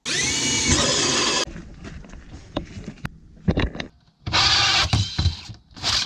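Ryobi cordless drill driving a hole saw through the caravan floor, running in three bursts: a spin-up lasting about a second and a half, another run of about a second some four seconds in, and a short one near the end, with rattles and knocks between.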